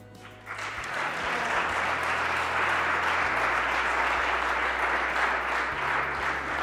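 Audience applauding: the clapping starts about half a second in and keeps up as a steady patter of many hands.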